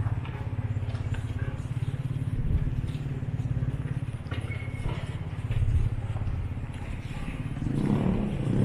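A motor vehicle's engine running nearby, a steady low pulsing rumble, swelling a little near the end.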